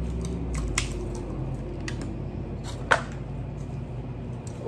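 Crab leg shells being snapped and cracked open by hand, a few sharp cracks, the loudest about three seconds in, with soft squishing of wet shellfish.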